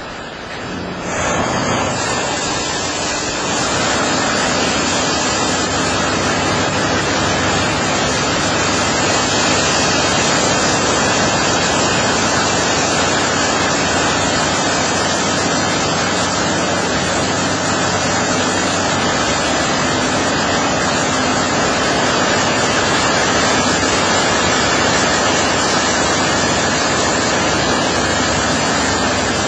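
High-pressure water jets from a one-arm touchless automatic car wash spraying a van, a steady loud hiss of spray that comes on about a second in, with a faint low hum underneath.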